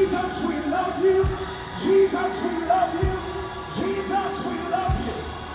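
College marching band brass, sousaphones included, playing a slow gospel number behind a male vocalist singing into a microphone, with a deep drum beat about every two seconds.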